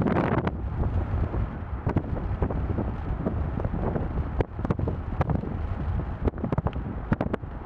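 Wind buffeting the microphone of a moving vehicle over a steady low road rumble, with many sharp crackles and pops, thicker in the second half.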